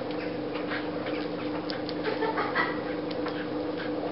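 A dog panting and snuffling, heard as faint short sounds over a steady two-tone hum.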